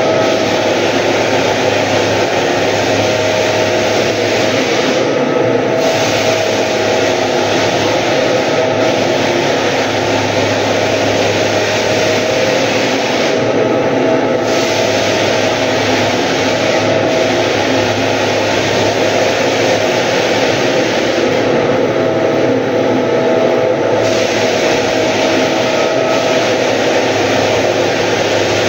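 Walk-behind drum floor sander running steadily as it sands a wooden floor: a loud, continuous motor and abrasive drone with a steady whine.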